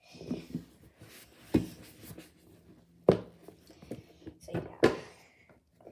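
Towel rubbing and scrubbing over a wet plastic pencil box, with three sharp knocks as the box is handled, spaced about a second and a half apart.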